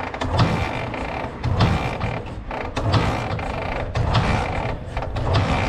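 Dnepr MT-10 flat-twin motorcycle being kicked over on its kick-starter about five times, a little over a second apart, with ratchet clatter on each kick; the engine turns over but does not catch.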